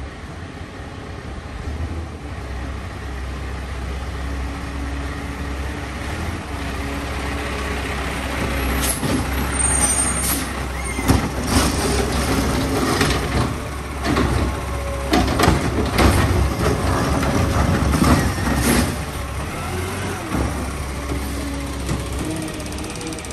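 Diesel engine of a Peterbilt 520 garbage truck with a McNeilus ZR body running steadily and growing louder. Through the middle comes a run of sharp metal clanks and bangs.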